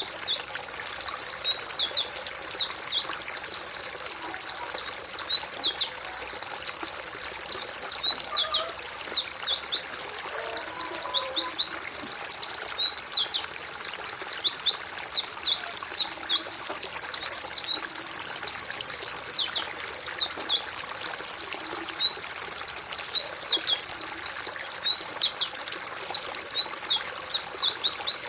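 White-eyes (pleci) giving a rapid, continuous stream of short, high, down-sweeping chirps that overlap one another, played as a training recording to prompt caged birds to sing.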